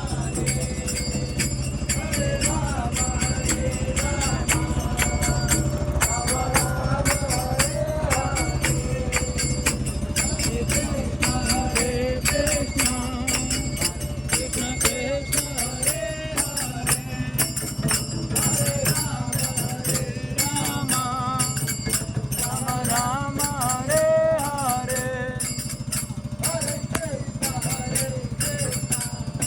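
Devotional music with fast, continuous jingling percussion over a steady low drone, a wavering melody rising and falling above it.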